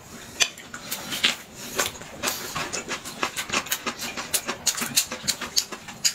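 Close-miked eating sounds: chewing and lip smacking on a thin pancake wrap with raw vegetables, heard as a stream of sharp, wet clicks and crunches, several a second.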